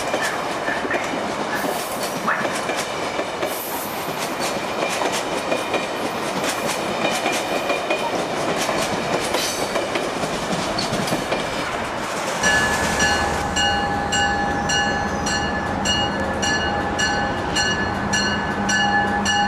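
Amtrak Amfleet passenger coaches roll past at speed, with a steady rumble of wheels on rail and clicking over the rail joints. About twelve seconds in, the sound changes to an Acela Express trainset pulling into the station: a steady electric whine and hum, with a high ringing pulse repeating about three times a second.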